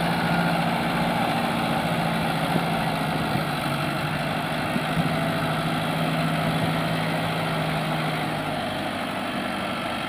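Mahindra Arjun tractor's diesel engine running steadily as the tractor moves across dirt working its front loader. A steady low hum in the engine note drops away near the end and the sound eases slightly.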